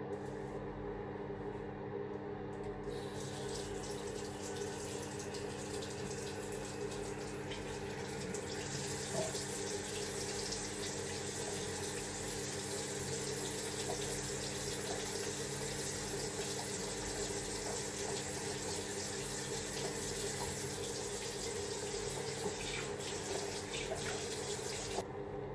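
Water running steadily from a tap into a sink, turned on about three seconds in and shut off near the end. A steady low hum runs underneath.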